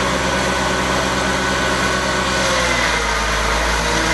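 Tractor engine running steadily while driving a single-row maize chopper, its low note shifting about two and a half seconds in.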